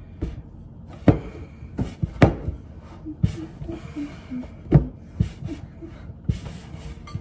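Pretzel dough being kneaded by hand: a series of irregular thumps as the dough is pressed and pushed against the work surface.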